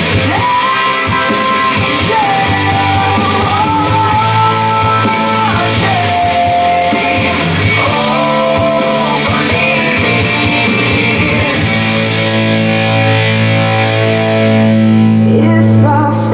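Guitar-led music played back from CD through a Dyna PAS tube preamp and a Hitachi amplifier, with long held melody notes. Near the end the bright top thins out, leaving a steady bass and held chords.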